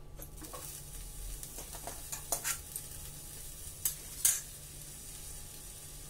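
Batter cooking in a covered pan on a low gas flame, sizzling faintly and steadily. A few light clicks and scrapes of a spoon against a metal tin, the sharpest about two and a half and four seconds in.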